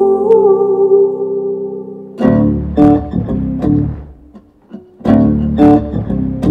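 A recorded song played back over the room's PA loudspeakers to judge the low end after subwoofer alignment and standing-wave EQ. Held organ-like chords, then from about two seconds in, loud plucked guitar and bass chords in a stop-start rhythm that nearly drops out around four seconds in and returns.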